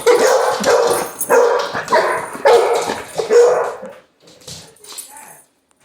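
Basset hound barking loudly, about six barks in quick succession, then going quiet after about three and a half seconds.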